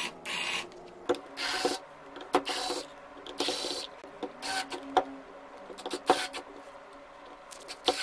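Handling noise from a power drill and small hand tools on a tabletop: irregular sharp clicks and knocks with short scraping sounds between them.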